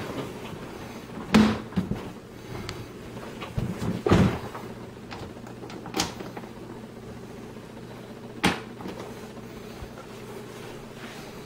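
Hollow plastic knocks and clicks from a ride-on toy jeep's dashboard being handled, four sharp ones a couple of seconds apart, over a steady low hum.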